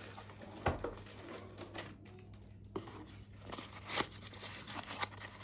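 Small cardboard box being handled and opened by hand: cardboard flaps rustling and scraping, with sharp clicks, the loudest about a second in and again near four seconds in.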